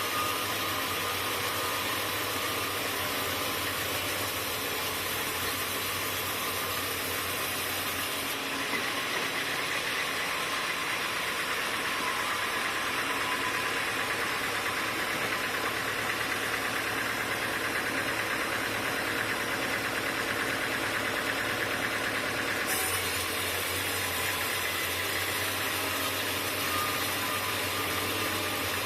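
Sawmill machinery running steadily, a continuous engine-like hum with a high whine. The sound's character changes abruptly about eight seconds in and changes back near the end.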